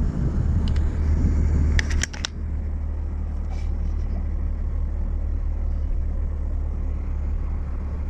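Car driving, with a steady low rumble of engine and road noise. A quick run of sharp clicks comes about two seconds in, and the rumble drops slightly after it.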